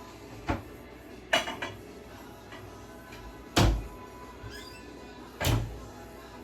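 Four sudden knocks and thumps of things being handled around a room, like cupboard doors or objects set down, the third and fourth the loudest, over quiet background music.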